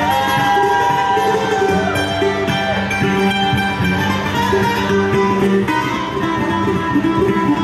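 Live string-band music: mandolin and acoustic guitar picking, with long held lead notes that slide in pitch.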